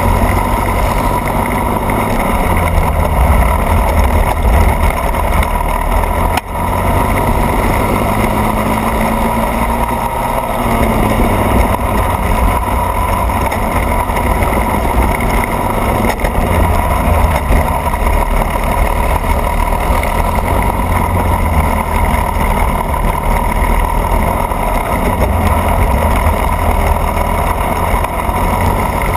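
Racing go-kart engine running hard, heard close up from the kart itself, with its pitch shifting briefly about ten seconds in and a short dip in level about six seconds in.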